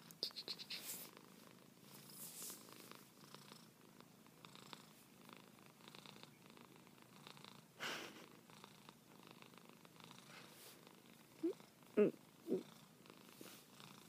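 Persian-type long-haired cat purring softly and steadily while being stroked under the chin. Fur rustles against the hand, and three brief squeaky sounds come near the end.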